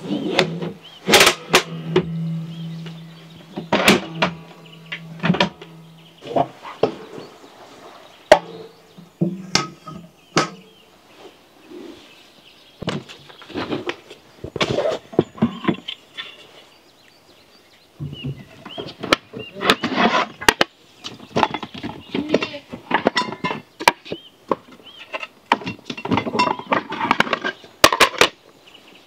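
Irregular sharp knocks and clatter of hard objects being handled and struck, with a low steady hum during the first ten seconds.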